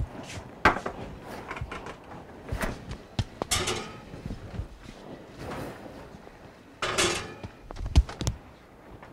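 Kitchen refrigerator door pulled open and later shut, with scattered knocks and clunks of dishes being handled and set inside.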